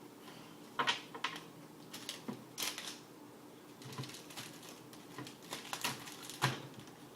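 Hockey cards being handled and flipped through by hand: irregular sharp clicks and snaps of card stock, the loudest about a second in and again near the end.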